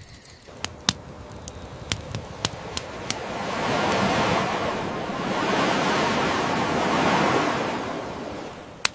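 Campfire crackling with sharp pops, then an ocean wave washing in: a rush that swells for a few seconds and fades away, with another pop from the fire near the end.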